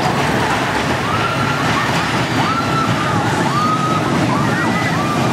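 Small steel kiddie roller coaster's train running along its track with a steady rumble of wheels, and a run of short high squeals that rise and fall from about a second in.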